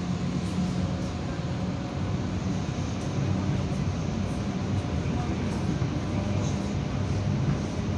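Steady running noise inside a moving passenger train carriage, with a low hum under it.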